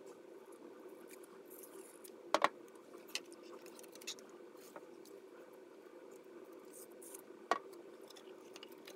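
Sharp plastic clicks and taps from hands handling a plastic battery case and its wiring. There is a loud double click about two seconds in, a few lighter ticks, and another loud click near the end, over a steady low hum.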